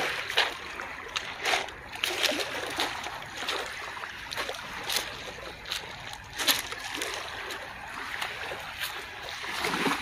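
Seawater splashing and lapping among shoreline rocks: a steady wash broken by short, irregular splashes.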